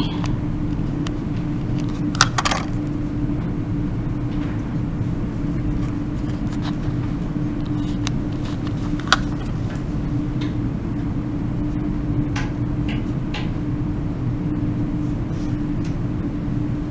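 A steady low background hum with a constant tone, over which come a few small sharp clicks and light scratches as correction tape is rolled over paper and a pen writes.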